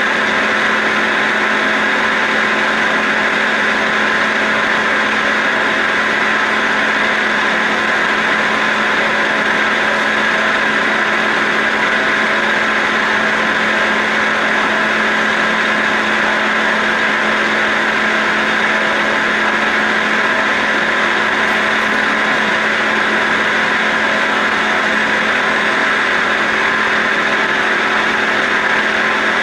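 CNC roll turning lathe taking a cut on a metal roll: a steady machine hum with an even hiss of cutting, unchanging throughout.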